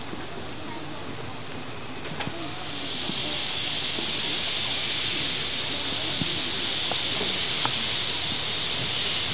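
Steam locomotive venting steam: a steady hiss that comes in about three seconds in and keeps on, over a lower steady rush.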